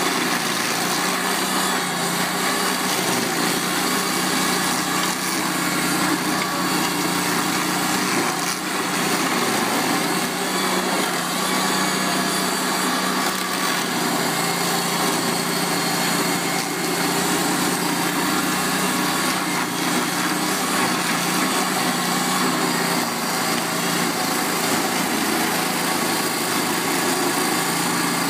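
Vermeer SC252 stump grinder running steadily under load, its carbide-toothed cutting wheel grinding conifer roots and soil into chips. The engine's steady drone sits under the noise of the wheel cutting.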